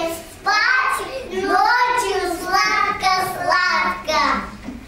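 Young children singing a song, in phrases with short breaks between them.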